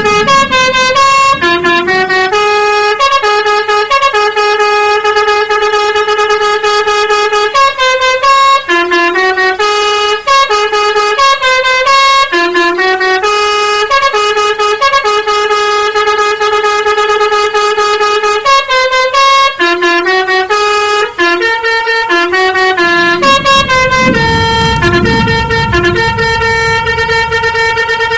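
Basuri 'telolet' multi-tone bus air horn playing a long melody: loud held notes stepping from pitch to pitch without a break. A low rumble sounds underneath near the end.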